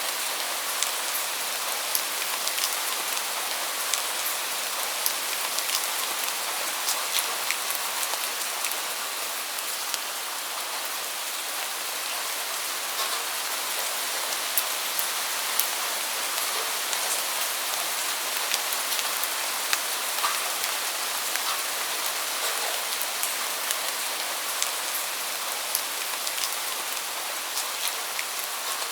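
Steady rain: a dense, even hiss with many distinct drops ticking sharply through it.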